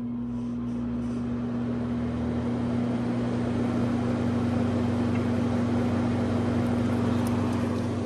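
Home HVAC system's blower fan running in fan-only mode, its airflow rushing louder over the first few seconds as it comes up to speed, over a steady electrical hum.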